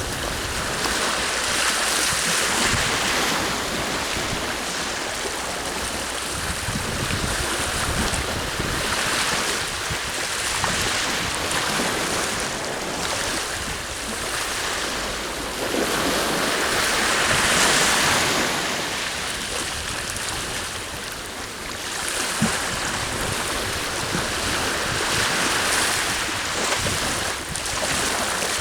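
Sea waves washing onto the shore, the surf swelling and fading every several seconds, with wind gusting over the microphone.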